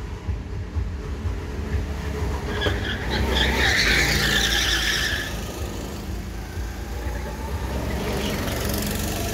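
Go-karts driving through a corner, their small engines running. About three seconds in one kart's tyres squeal and skid for about two seconds as it slides through the turn; a second kart passes near the end with a fainter skid.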